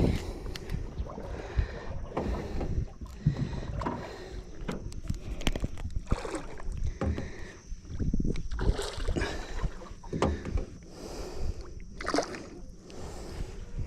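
Water sloshing around a small fishing boat, with irregular knocks and clicks.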